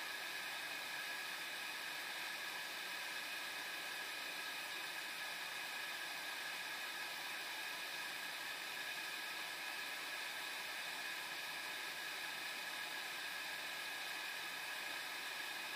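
A steady, even hiss with nothing else standing out.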